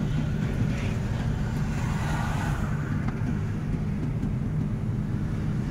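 Truck engine running steadily under way, with road noise, heard from inside the cab as a continuous low drone. A brief swell of hiss comes about two seconds in.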